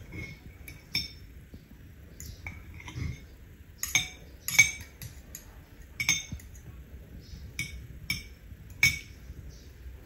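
Metal fork and spoon clinking and scraping against a plate while eating. Irregular sharp clinks come about once a second, the loudest about four and a half seconds in.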